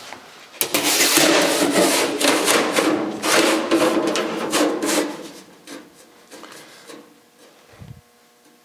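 A sheet of 18-gauge steel floor pan scraping and rattling as it is slid across the bed and clamping bar of a manual sheet-metal brake, the thin sheet ringing as it moves. After about five seconds the sound drops to a few light knocks.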